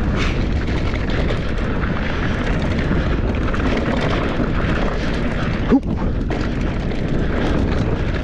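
Wind buffeting a helmet- or bike-mounted action-camera microphone, mixed with mountain-bike tyres rolling over a dirt trail on a fast descent: a loud, steady rumble with one brief jolt about six seconds in.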